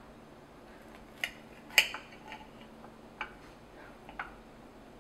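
Knife and fork clinking against a plate while cutting a waffle: several sharp, separate clinks, the loudest about two seconds in.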